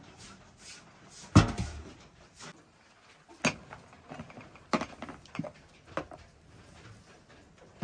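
A dull knock about a second in, then a few sharp separate clinks as glass tea glasses are set down on a plastic tray.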